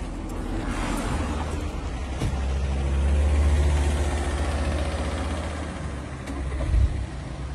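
Volkswagen Tiguan 2.0 TDI diesel engine running at idle, a low steady hum that swells about three seconds in and eases off again.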